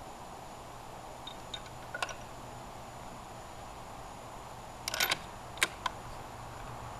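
Light clicks of a bolt-action .308 rifle and cartridges being handled between shots: a few single clicks about a second and two seconds in, a quick cluster of clicks about five seconds in, then two more single clicks, over a faint steady hum.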